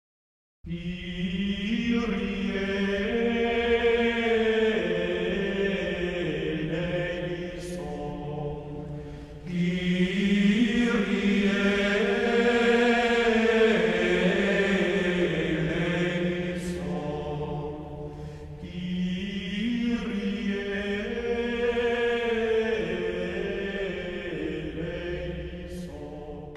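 Slow choral chant music: long held sung notes in three phrases, each fading away before the next begins.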